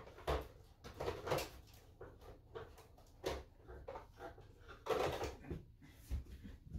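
Scattered light knocks and rustles of handling, a few short bursts spread irregularly, with no clipper or trimmer motor running.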